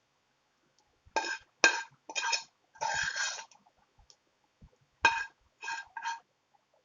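Metal utensil scraping and clinking against a cooking pan in seven short strokes, in two groups, each stroke ringing briefly.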